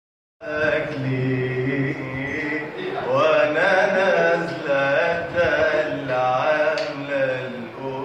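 A man singing solo in an Egyptian Arabic style: a drawn-out opening phrase of long held notes and sliding, ornamented turns, beginning about half a second in.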